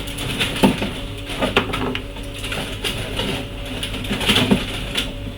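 Tools and small parts being handled on a repair bench: irregular clicks, taps and scrapes, loudest about half a second in and again near four and a half seconds, over a steady electrical hum.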